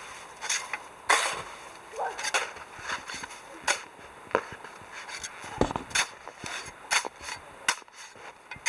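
A series of sharp knocks and cracks at irregular intervals, about one or two a second.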